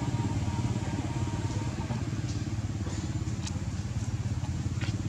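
A small engine running steadily, a low pulsing rumble, with a few faint clicks on top, about two, three and a half and five seconds in.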